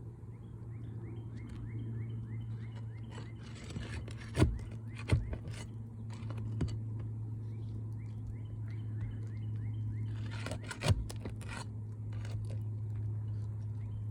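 Hand tools working loose a damaged asphalt roof shingle: bouts of scraping with a few sharp knocks, two about four and five seconds in and the loudest near eleven seconds, over a steady low hum.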